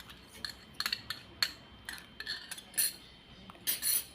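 Metal spoon clinking and tapping against a saucepan and dishes as sugar is spooned into the water: a string of short, sharp clicks at irregular intervals, bunched more closely near the end.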